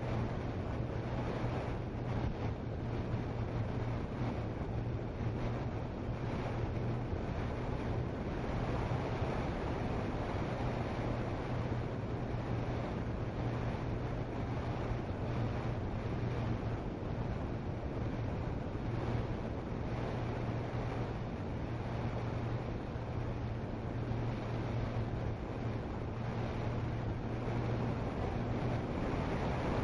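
Onboard sound of a Multiplex TwinStar RC plane in flight: its two electric motors and propellers give a steady low drone, with wind rushing over the microphone.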